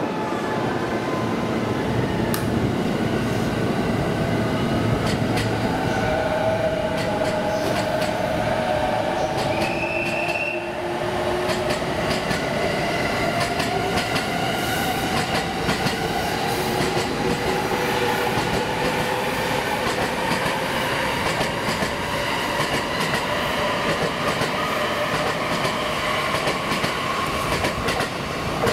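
Electric commuter trains running through the station, wheels clicking over rail joints, with the traction-motor whine of a JR E217 series train climbing in pitch as it pulls away and accelerates.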